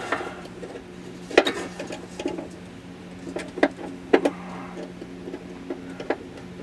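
Scattered sharp metallic clicks and taps, the loudest three between about 1½ and 4 seconds in, as a hitch bolt and its flat plate are worked on a fish wire into a car's hollow frame rail. A steady low hum runs underneath.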